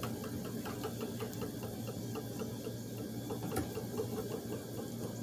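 Treadle spinning wheel running as wool is spun into yarn, with a quick, even ticking over a steady low hum, and one sharper click about three and a half seconds in.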